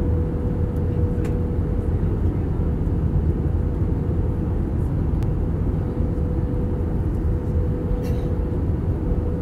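Airbus A320 cabin noise during the descent: a steady low rumble of engines and airflow with a steady hum throughout, and a few faint ticks.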